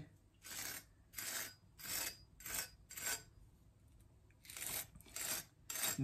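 A Victorinox Grand Maitre santoku's edge is drawn lightly through the scratchy side of a Scotch-Brite scouring pad. There are about eight short scratchy strokes, with a pause of about a second midway. The rough pad grabs and deforms the burr left on the soft-steel edge after sharpening.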